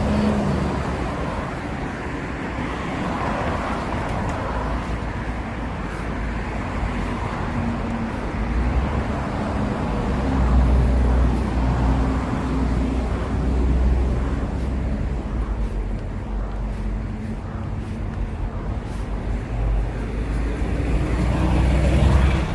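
Street traffic: cars passing with a steady low engine rumble and road noise, swelling as vehicles go by about ten seconds in and again near the end.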